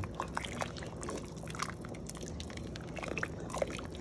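Soup being stirred in a pot, with liquid sloshing and scattered light clicks of the spoon against the pot.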